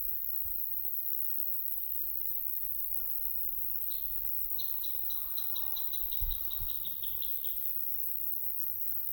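A small songbird sings a phrase of about fifteen quick repeated high notes, around five a second, starting about four seconds in and stopping near the end. Under it, wind rumbles on the microphone, with a brief gust bump just after the middle.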